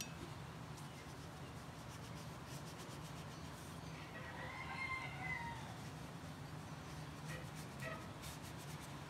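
A single drawn-out animal call with a clear pitch, faint and distant, about four seconds in and lasting a second and a half, over a steady low hum. A few light brush strokes on paper come near the end.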